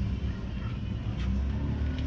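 Low, steady rumble of a motor vehicle engine, with one short click about a second in.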